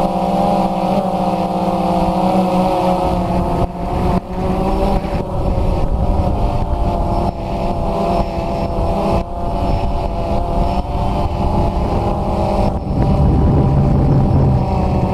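DJI Phantom 2 quadcopter's electric motors and propellers whirring in flight, heard close up from the camera mounted on the drone. The hum wavers in pitch with throttle and drops to a lower, louder tone about thirteen seconds in.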